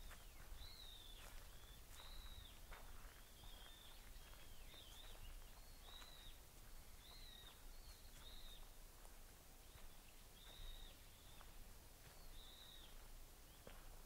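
Faint bird calls: short, high, arched notes repeated roughly once a second over quiet outdoor ambience.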